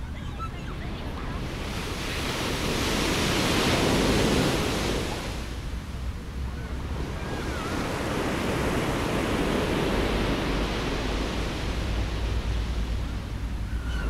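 Sea surf breaking and washing onto the shore. One wave surges up a few seconds in and eases off, then the wash builds again and holds.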